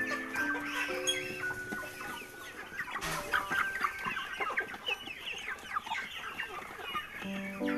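A large flock of chickens calling all at once, a dense mass of many short overlapping clucks and peeps that swells about three seconds in. Background music plays at the start and comes back near the end.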